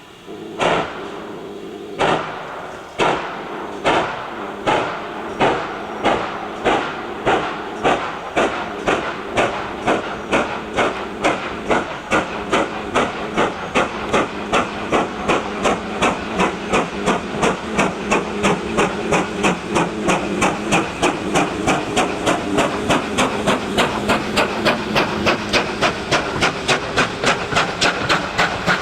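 Steam locomotive pulling away from a standstill, its exhaust chuffs sharp and about a second apart at first, quickening steadily to around three a second over a steady hiss of steam.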